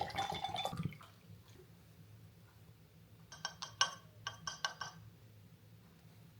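Glass Pyrex bottle clinking as pre-workout is mixed in it. A jumble of clinks and liquid sounds comes in the first second. Around the middle comes a quick, uneven run of about seven bright, ringing glass clinks.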